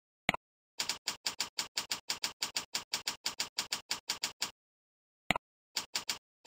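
Computer keyboard keys clicking as text is typed into a web form: a quick, even run of about five keystrokes a second for some four seconds, then a few more scattered keystrokes after a short pause.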